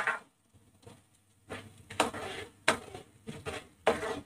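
Steel spatula stirring and scraping thick tomato-and-spice masala around a non-stick kadai: a sharp knock at the start, then a run of irregular scraping strokes.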